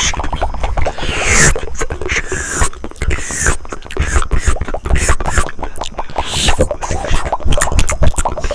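Close-miked ASMR mouth sounds: rapid wet tongue and lip clicks, many a second, broken by short breathy hissing sweeps.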